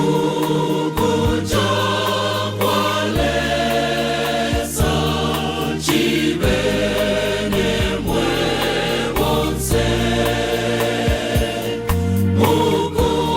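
Choir singing a gospel hymn with instrumental backing, with a steady bass line under the voices.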